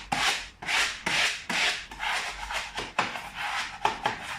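Swishing strokes of a paperhanging brush smoothing freshly pasted lining paper onto a wall, about two strokes a second.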